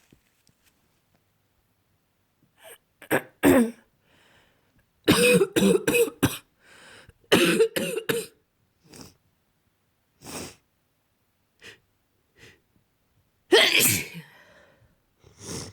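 A person with a cold in a sneezing fit: sharp sneezes in quick runs, with quick clusters about five and about seven and a half seconds in, softer single bursts between them, and one big sneeze near the end.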